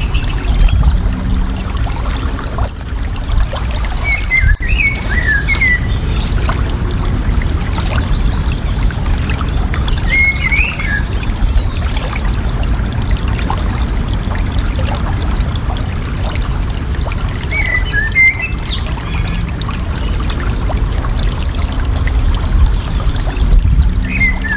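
Steady flowing water, with a songbird singing a short warbling phrase every six seconds or so, four or five times.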